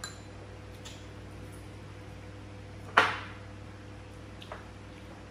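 Tableware clicking lightly during a meal, with one sharp knock of a dish or utensil on the table about three seconds in, louder than the rest, over a steady low hum.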